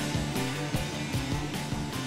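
Background music with a steady beat and plucked guitar, fading slowly.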